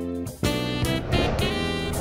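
Jazz intro music: a melody of short held notes on a lead instrument, with a brief break just after it begins.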